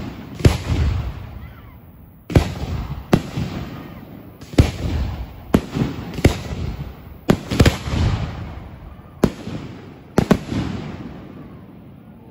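Fireworks going off: about a dozen loud bangs at irregular intervals, several in quick pairs, each trailing off in a rumbling echo, with the last bangs a little before the end.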